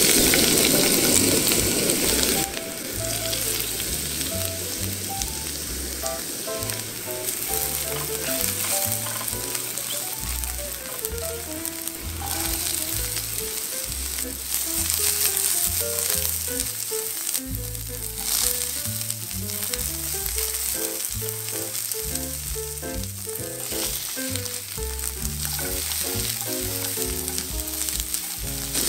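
Sliced dried shiitake mushrooms hitting hot oil in a frying pan with a loud sizzle for about the first two seconds, then steady sizzling as carrots and pumpkin cubes are stir-fried with a spatula. Soft background music with a bass line plays throughout.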